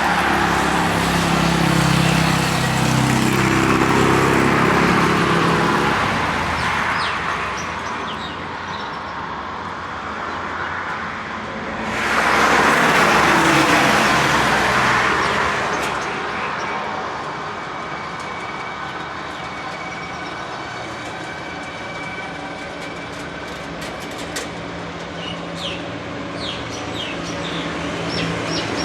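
Road traffic: cars and trucks passing. A vehicle's engine hum fills the first few seconds, then fades. About twelve seconds in, another vehicle goes by close with a loud rush of tyre and engine noise. Quieter traffic follows, with another engine coming up near the end.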